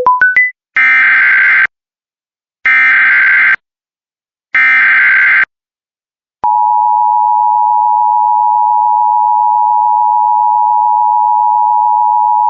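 Emergency Alert System broadcast opening: three one-second bursts of SAME header data, a raspy digital warble, then about six seconds in the steady two-tone EAS attention signal (853 and 960 Hz) sounding, which heralds the alert's voice message. A short rising run of beeps sounds at the very start.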